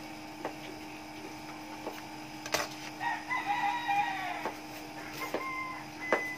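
A rooster crows once in the background, starting about three seconds in and lasting about a second and a half. Small sharp clicks come from a flat ribbon cable being worked into a DVD player's laser pickup connector, the loudest about two and a half seconds in and just before the end, over a steady low hum.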